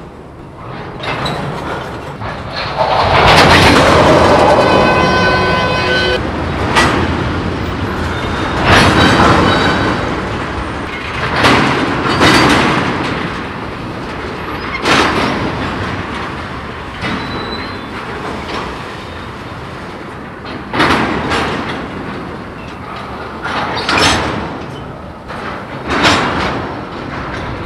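Tank cars of a slow-moving freight train banging and thudding as coupler slack runs in and out, a string of sharp metallic impacts at uneven gaps. A long loud metallic screech with a steady ringing pitch comes about three seconds in.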